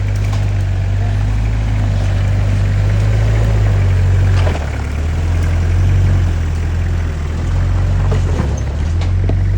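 Vehicle engines labouring under load as a Toyota Land Cruiser Prado tows a truck on a tow strap: a deep, loud drone that eases off and picks up again about four and a half and seven and a half seconds in, with a few short knocks and rattles.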